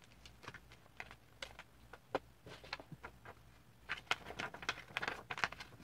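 A sheet of paper rustling and crackling as it is handled and creased while being folded into a paper airplane: scattered short crinkles, getting busier about four seconds in.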